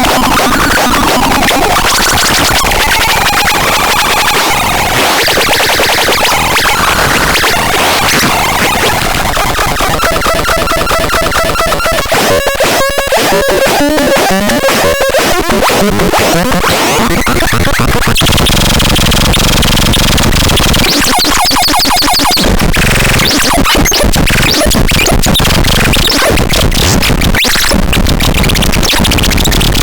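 Harsh electronic noise from a ROAROR sound device, with wavering, gliding pitches over dense hiss. About halfway through it turns to a fast warbling tone that slides downward. From about eighteen seconds in it becomes a heavy low rumble under the noise.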